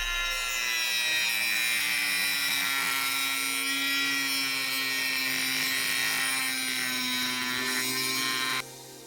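Dremel-type rotary tool with a cutoff disc cutting into a metal belt buckle. A high whine sags slightly in pitch as the disc loads up, then stops abruptly just before the end.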